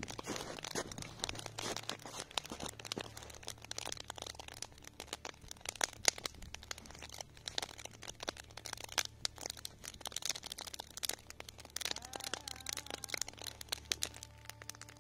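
Log campfire crackling: a dense, irregular run of sharp pops and snaps.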